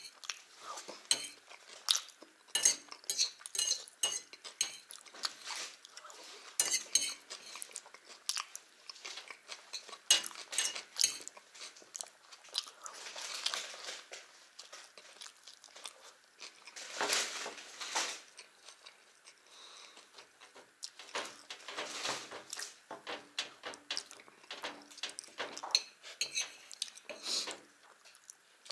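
Metal fork clicking and scraping on a china plate while salad is scooped up, mixed with close-up chewing and mouth sounds of eating salad and bread. The clicks come irregularly, many close together.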